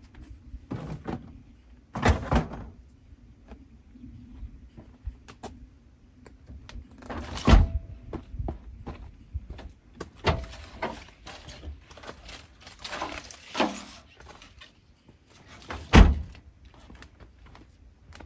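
A series of irregular knocks and thumps, the loudest about seven and a half and sixteen seconds in, over a faint steady low hum.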